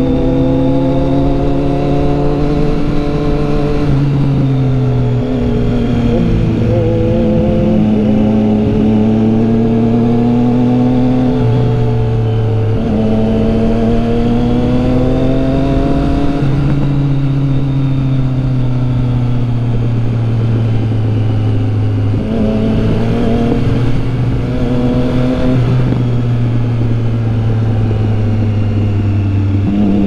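Motorcycle engine running at road speed, its pitch rising and falling several times as the revs change.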